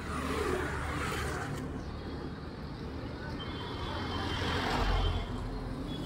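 Road traffic: motor vehicles passing close by over a steady engine rumble, one swelling past just after the start and another around four to five seconds in.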